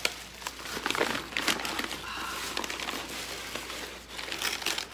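Brown packing paper and a clear plastic bag crinkling and rustling in the hands as a plant is unwrapped, in irregular crackles.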